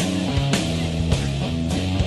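Rock music with guitar and a steady drum beat, about two hits a second.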